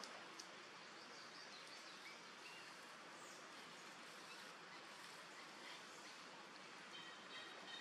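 Near silence: faint outdoor background hiss with a few faint bird chirps, and thin steady high-pitched tones coming in near the end.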